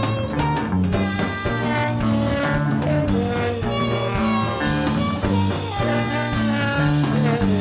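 Live band playing an instrumental passage with no singing: a bass line stepping through low notes under a held, bending lead melody.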